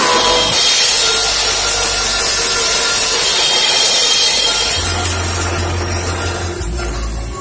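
Drum kit played hard right next to the microphone, the cymbals crashing and ringing together into a steady, harsh wash that covers the individual drum strokes.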